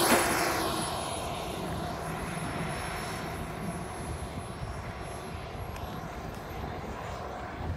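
RC model jet's motor running as it passes close by on the runway: its whine drops in pitch as it goes past just at the start, then fades to a steady, quieter hum as it moves away.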